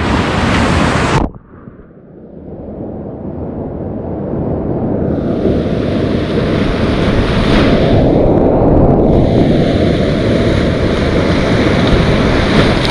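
Whitewater rapids rushing loudly around a kayak, heard on a boat-mounted camera. About a second in, the sound drops suddenly and turns muffled, with only the low rumble left; the higher hiss of the water then gradually returns.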